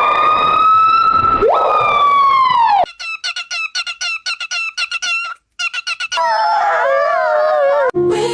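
Animal calls from several short clips cut together: first a long, high, siren-like call that drops in pitch near its end, then a quick run of short chirps, about four or five a second, then a wavering, warbling call.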